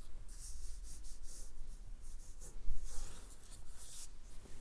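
Felt-tip marker nib scratching across drawing paper in a run of short, quick colouring strokes, filling in skin tone.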